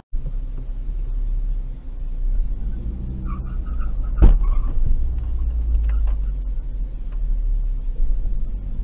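Steady low engine and road rumble inside a moving car's cabin, with a few short beeps and then a single sharp bang about four seconds in, as a sedan cutting in from the right strikes the car.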